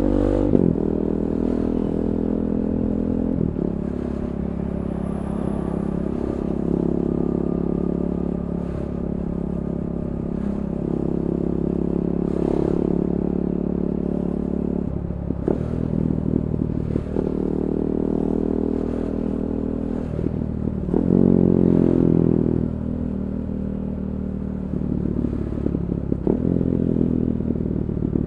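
KTM 390 Duke's single-cylinder engine running through an Akrapovic Moto2 slip-on exhaust with the catalytic converter removed. The engine note holds steady for long stretches and changes pitch suddenly several times, and it rises and is loudest about three quarters of the way through.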